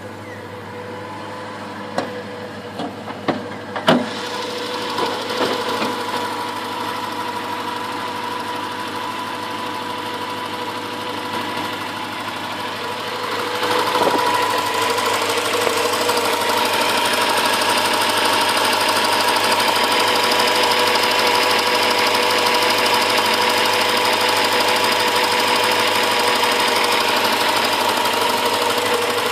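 HSV VS Clubsport's 5.0-litre V8 idling steadily, heard close over the open engine bay, getting louder about halfway through as the microphone nears the engine. A few sharp knocks in the first few seconds.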